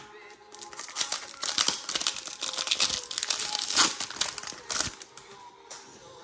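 Foil wrapper of a Pokémon trading card booster pack crinkling and tearing as it is ripped open by hand. It sounds for about four seconds as a dense crackle of sharp crinkles, then quietens near the end.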